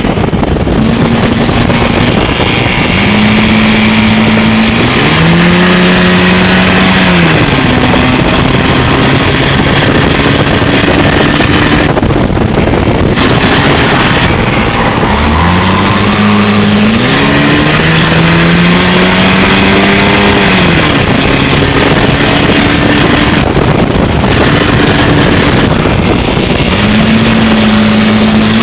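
Engine of a Stinger-class dirt-track race car heard from inside the cockpit, running hard around the oval. Its pitch climbs and falls back a few times, over a steady rush of wind and road noise.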